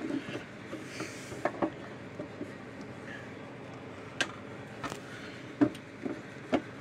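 Scattered clicks and knocks as the new solar-panel top cover is worked and pressed onto a Parmak Solar Pak fence charger's case, which is bent in on one side and resists fitting.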